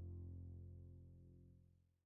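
Background music: a held, low, sustained chord fading out to silence at the very end.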